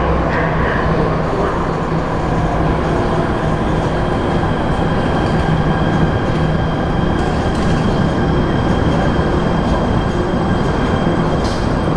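An MRT Jakarta Ratangga metro train runs into an underground station behind the platform screen doors. It makes a steady rumble, and a thin high whine comes in about two seconds in.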